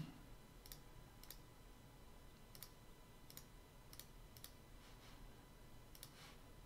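Faint computer mouse clicks, about eight of them at irregular intervals, as menu items are picked, over near-silent room tone.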